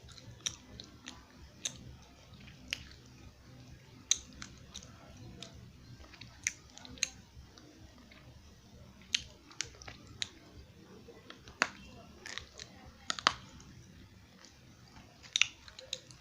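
Close-up chewing of crunchy eko clay: irregular sharp crunches and crackles as the dry clay breaks between the teeth, a few to several per second, some louder than others.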